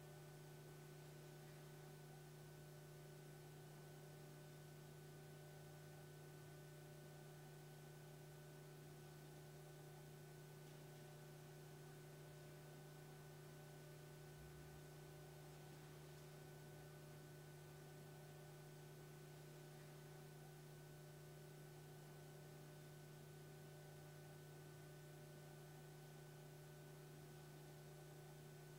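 Near silence: a faint, steady hum made of several unchanging tones over a light hiss.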